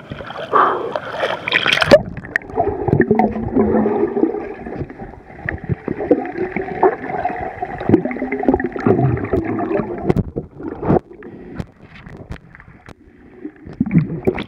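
A splash about two seconds in as the microphone goes under, then muffled underwater gurgling and bubbling in a swimming pool, heard through a submerged camera, dying down after about ten seconds.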